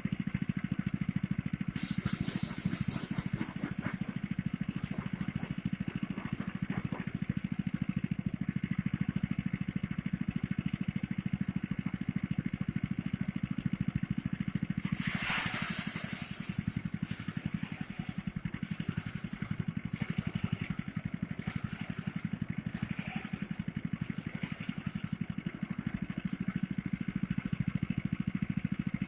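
Small engine of a motorised rice thresher running steadily. Two brief hissing rushes cut in over it, one about two seconds in and one about fifteen seconds in.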